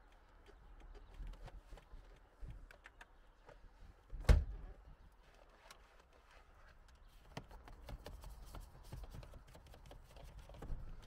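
Faint scratching and clicking of a detailing brush and microfibre cloth worked over a car's plastic dashboard and vent trim, with one sharp knock about four seconds in and a run of small ticks near the end.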